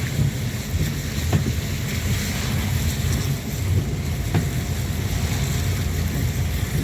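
Heavy rain pouring down and water rushing, with wind buffeting the microphone in a steady low rumble.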